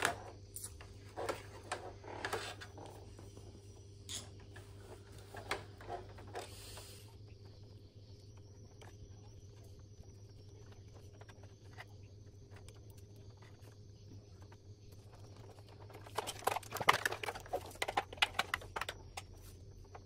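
Hands working wires and a plastic connector on an air-conditioner indoor unit: scattered clicks and rustles through the first several seconds and again near the end, over a low steady hum.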